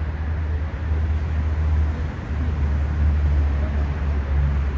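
Steady low rumble with a noisy hiss above it, like street traffic or a running vehicle.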